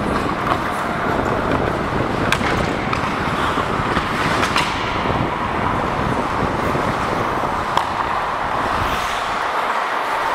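Ice hockey play heard from a referee's helmet camera while skating: a steady rush of skate blades and wind on the microphone, broken by a few sharp stick-and-puck clacks.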